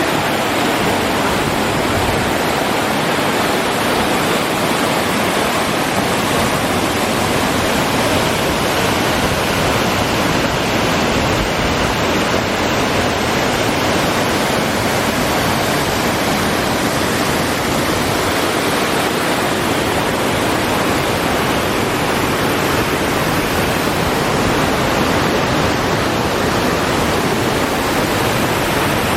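Waterfall pouring down, a loud steady rush of falling water.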